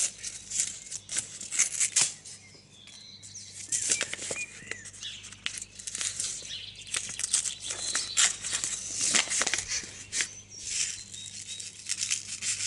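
Paper seed packet crinkling and rustling in repeated short bursts as it is torn open, handled and tipped over an open palm to shake out the seeds.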